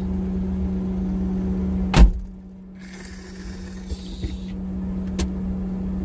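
Small truck's engine running steadily, heard from inside the cab as a low hum and rumble. About two seconds in there is a single loud thump, after which the rumble drops noticeably.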